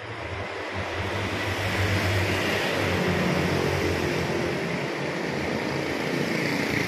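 Street traffic: a steady wash of vehicle noise that swells about a second in and then holds.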